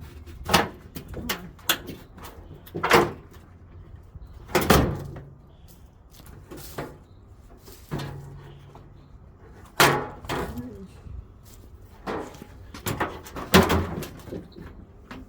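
Irregular knocks and clunks of a front-load washer's parts being pried and banged at by hand with a screwdriver, about a dozen blows spaced unevenly. The part is held by a hidden screw, which is why it won't come apart.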